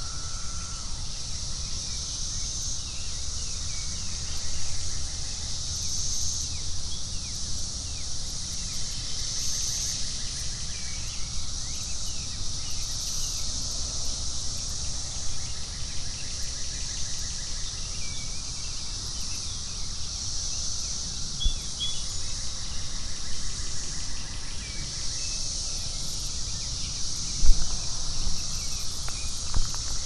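Chorus of 17-year periodical cicadas (Brood X) massed in the trees: a loud, steady, high-pitched hum that swells and fades in waves every few seconds. Bird calls chirp now and then beneath it.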